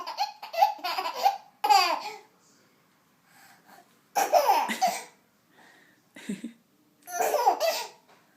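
Baby laughing at a fake sneeze: a long fit of laughter, then three shorter bursts about four, six and seven seconds in.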